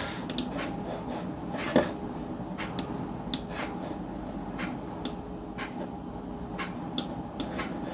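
Sparse, irregular light clicks of computer keys being typed, about one or two a second, over a low steady hum.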